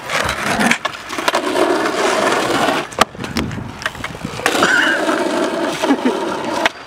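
Skateboard wheels rolling on smooth concrete, with several sharp clacks of the wooden deck hitting the ground during attempts at a fakie big heel flip. The loudest clack comes about three seconds in.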